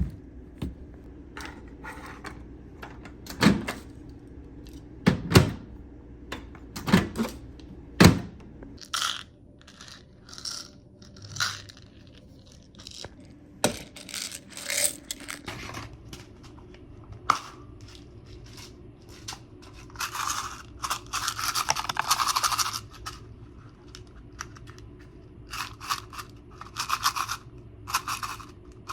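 Recorded foley effects: several sharp knocks or thuds in the first eight seconds, then a run of short scrapes and rustles, with a longer burst of rustling about twenty seconds in.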